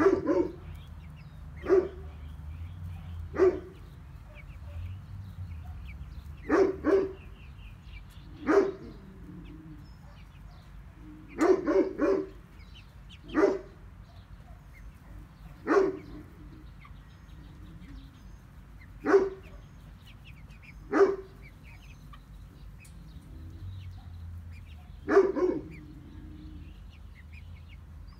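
Animal calls: about a dozen short, sharp, loud calls, single or in quick pairs, one every one to four seconds, over a low steady rumble.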